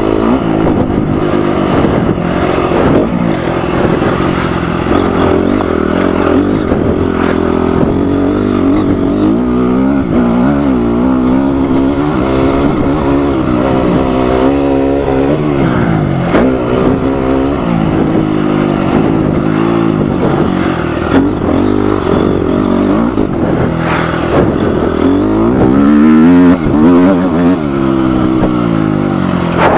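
Honda CRF250R motocross bike's single-cylinder four-stroke engine, ridden hard: it revs up and drops back again and again as the rider works the throttle and gears. A few brief sharp clicks come through, one near the end.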